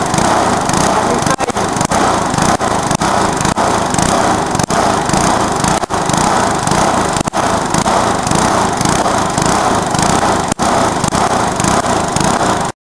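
Briggs & Stratton single-cylinder lawnmower engine running loud and steady, being run to destruction. There are a few brief dropouts in the sound, and it cuts off suddenly near the end.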